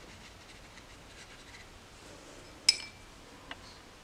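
Quiet watercolour painting sounds: a brush rubbing faintly on sketchbook paper, then one sharp clink with a short ring about two and a half seconds in, and a softer tick just after, as the brush goes back to the paint palette.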